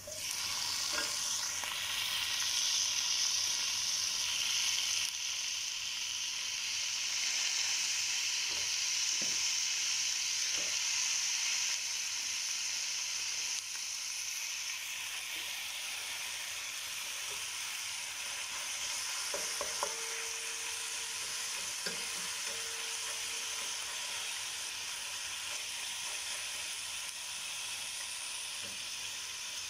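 Marinated chicken pieces sizzling as they fry in hot oil with sliced onions in a pan. The sizzle starts at once as the pieces go in, runs strongest for the first dozen seconds, then eases a little, with a few light taps along the way.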